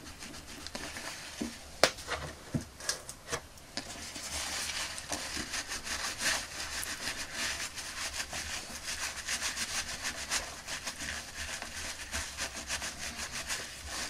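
Paper kitchen towel rubbing rapidly over a small plastic toy hat, wiping off paint softened in brake fluid: quick, scratchy strokes that get busier after about four seconds. One sharp click comes about two seconds in.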